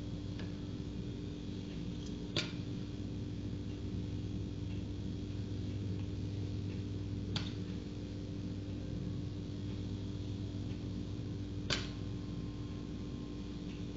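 Three sharp clinks a few seconds apart, a utensil tapping against glassware as drink ingredients are measured, over a steady low hum.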